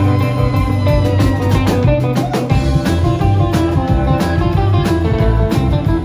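Live rockabilly band playing: electric guitars over an upright double bass line and a steady drum-kit beat.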